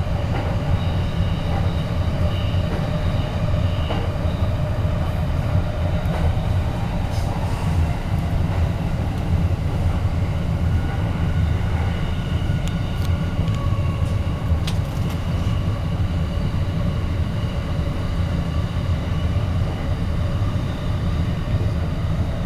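Train running noise, a steady low rumble that holds evenly throughout, with faint steady tones above it.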